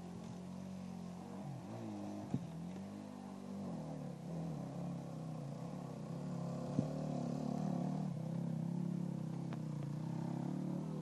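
Enduro dirt bike engine pulling up a steep hill climb, its pitch rising and falling as the rider works the throttle, growing louder as the bike comes closer. Two sharp knocks stand out, about two and seven seconds in.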